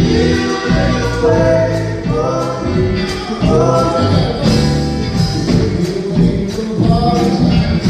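Live gospel music: a man sings lead into a microphone over a band of drum kit and keyboard, amplified through PA speakers, with steady cymbal and drum hits keeping the beat.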